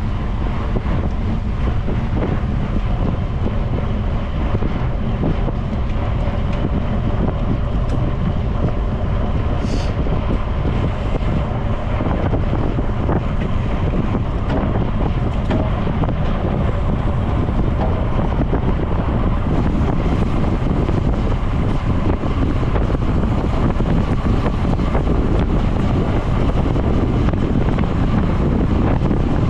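Wind buffeting the microphone of a camera riding along on a moving bicycle: a steady rushing noise, heavy in the low end, growing slightly louder about two-thirds of the way through.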